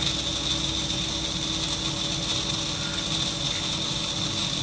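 Brushed motor of a Milwaukee M18 wet/dry vacuum running steadily with a high whine and a rough rattling, sounding terrible. This is the noise of a worn front bearing, or possibly a bushing.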